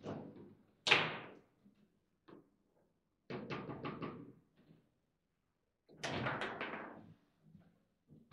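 Table football (foosball) in play: a sharp knock about a second in, the loudest sound, then two spells of rapid clacking about three and six seconds in as the ball is struck and passed among the plastic player figures on their metal rods.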